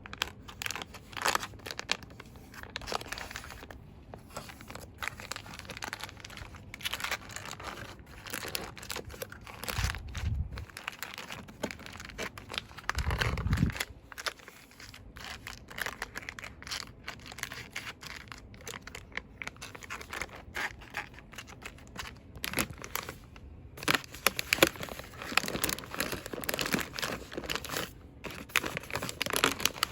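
Fast, dense rustling and crinkling of cosmetics packaging handled close to the microphone, with two short low thuds near the middle.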